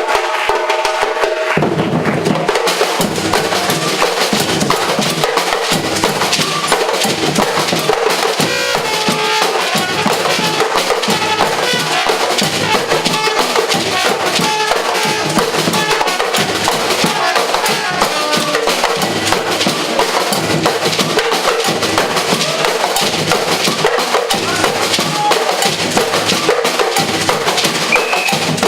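Live percussion group playing a dense, driving drum rhythm, with deep bass drums coming in about a second and a half in.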